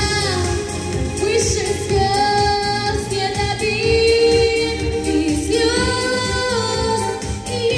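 A young female singer singing a song into a microphone over instrumental accompaniment, holding several long notes.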